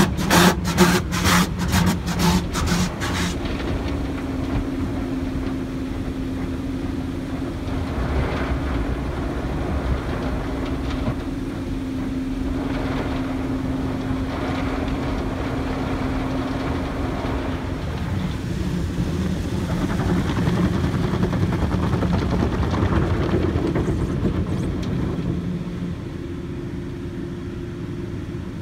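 Automatic car wash heard from inside the car: water spray and spinning cloth brushes beating on the body and windows over the steady hum of the wash machinery. It opens with a rapid, even beating that stops after about three seconds, then settles into a steadier wash noise.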